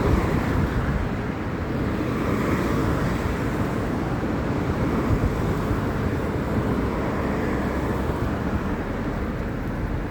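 Steady wind rush on the microphone and road noise from riding a bicycle along a city street, with car traffic passing.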